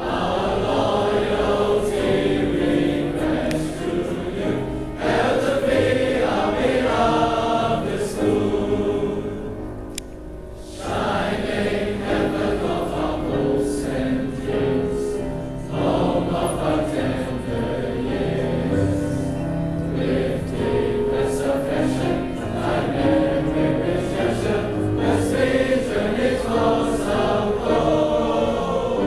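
Large mixed choir of teenage boys and girls singing a school hymn with piano accompaniment. The singing drops away briefly about ten seconds in, between phrases, then comes back in.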